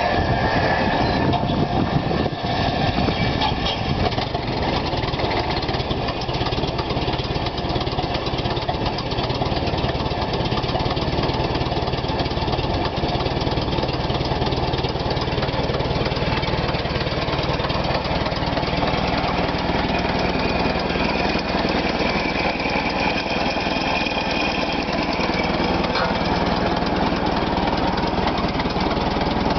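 Whine of an Eclipse inertia starter's hand-cranked flywheel, cut off about two seconds in as the starter is engaged and the 855 cubic inch Hercules HXD six-cylinder gasoline engine of a 1943 Federal 606 truck catches. The engine then runs steadily at idle.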